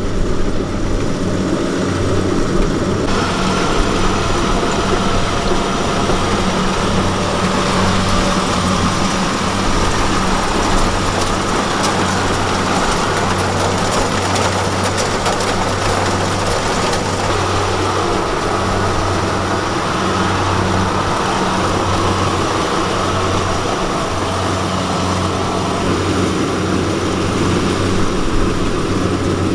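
Diesel engine of Kubota rice-harvesting machinery running steadily with a low, even hum under mechanical whirring; the higher whirring gets louder about three seconds in.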